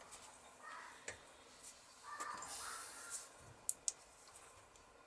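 Faint, scattered ticks and clicks of hand work on a motorcycle cylinder head while its valves are lapped in, with two sharp clicks close together about three and a half seconds in.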